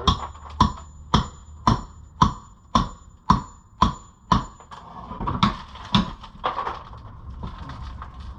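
Repeated blows on rotten wood, about two a second, for roughly four and a half seconds, then irregular cracking and knocking as the wood is broken and pulled loose.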